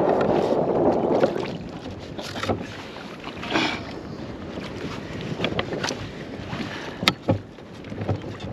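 Water and wind noise aboard a small boat at sea, with scattered sharp knocks and clicks of things being handled on board. A louder rush of noise fills about the first second.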